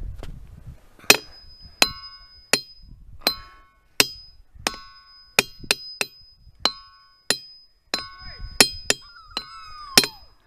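Ringing-rock boulders struck with a hammer, about fifteen sharp hits, mostly every half to three-quarters of a second, each leaving a clear ringing tone that changes from rock to rock.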